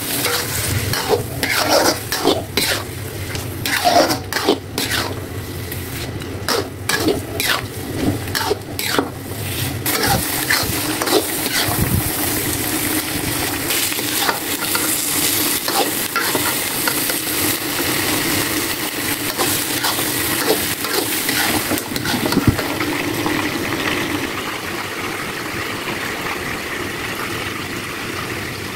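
A spatula scraping and clacking against a wok as prawns in sambal chili paste are stirred with sliced onions, for about the first ten seconds; then a steady sizzle of the sambal frying, easing off near the end.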